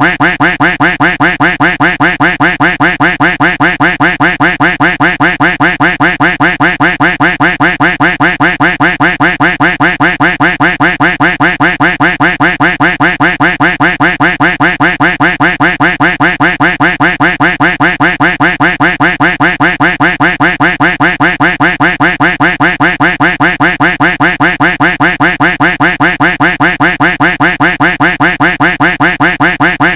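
Duck quack sound effect looped, the same recorded quack repeating at an even, quick pace of a few quacks a second without a break.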